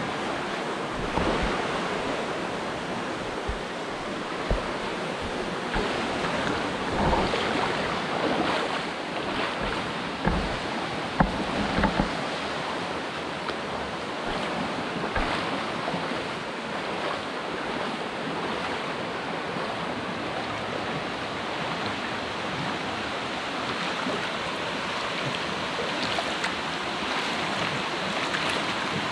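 Steady rushing of flowing water, with a few dull thumps in the first twelve seconds.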